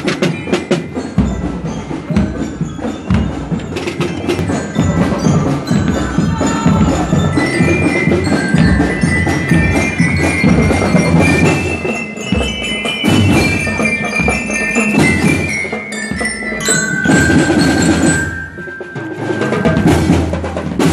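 Drum and lyre band playing a march: metal bell lyres struck with mallets carry a melody over steady snare drumming. Through the middle the lyre tune climbs and then falls.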